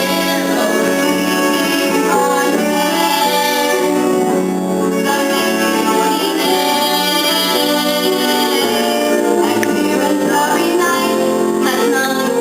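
Stage musical number: young voices singing with instrumental accompaniment, holding long notes.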